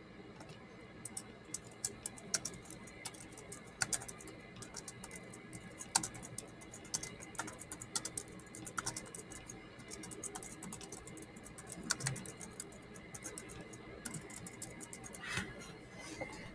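Computer keyboard being typed on: light key clicks in quick irregular runs with short pauses, as a sentence is typed out.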